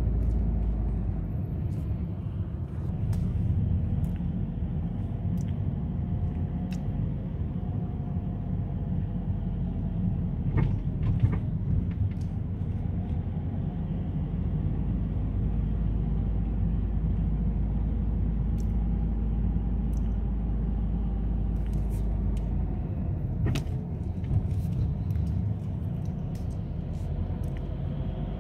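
Car driving on rain-wet roads, heard from inside the cabin: a steady low engine and road rumble with tyre noise, and scattered sharp ticks throughout.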